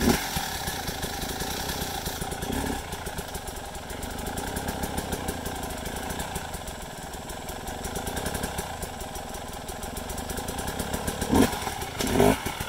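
Dirt bike engine catching suddenly, then running steadily at a fast idle, with a couple of louder bursts near the end.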